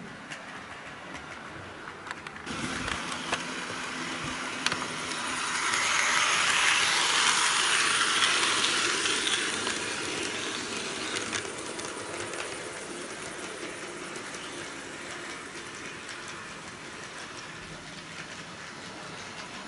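HO-gauge model train, an EF81 electric locomotive hauling Suhafu 42 coaches, running on the track with a steady rolling rumble of wheels on the rails. The rumble steps up a couple of seconds in, swells to its loudest as the train passes close by, then fades as it moves away, with a few sharp clicks along the way.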